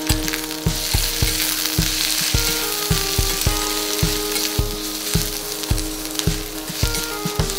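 Sliced onions sizzling and frying in hot oil in a steel kadai as they are stirred with a spatula. Background music with a steady beat plays under the sizzle.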